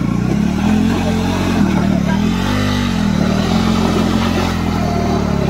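Single-cylinder adventure-motorcycle engine held at raised revs under load as the bike is worked up a steep dirt slope, with one brief rise and fall in revs about two and a half seconds in.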